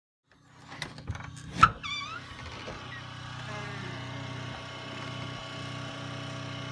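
A small engine running steadily at idle, with a few knocks and one loud bang about a second and a half in, followed by a short squeak that dips and rises.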